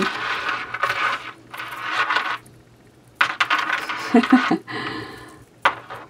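Gold-tone metal necklace links clinking and rattling as they are handled, in two spells of a couple of seconds each with a short quiet gap between, and a few sharp clicks near the end.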